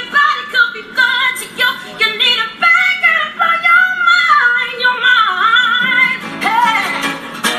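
A woman singing with sliding, ornamented runs of notes, accompanied by a strummed acoustic guitar.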